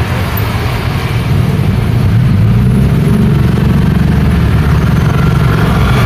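Road traffic passing close: a small pickup truck and then a group of motor scooters, engines running, getting louder about two seconds in.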